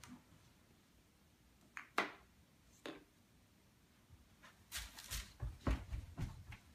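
Small knocks from a toddler at a plastic toy drawing desk: two sharp clicks about a second apart, then a quick run of soft thumps and knocks near the end as he steps away across the floor.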